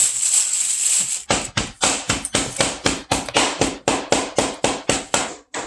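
Chicken being chopped with a knife on a cutting board: a fast, even run of knocks, about five a second, starting about a second in after a short scraping rub.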